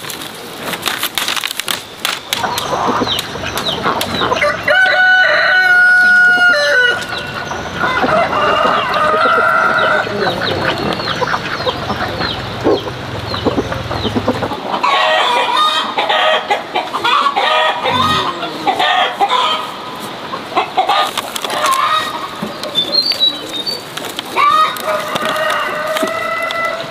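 Roosters crowing several times in long, drawn-out calls, with hens clucking in between. A few sharp taps near the start.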